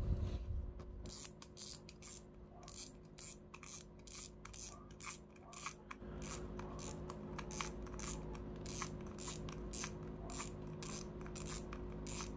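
Shimano Miravel spinning reel being taken apart by hand: a run of irregular light clicks, several a second, with rubbing and scraping of its parts.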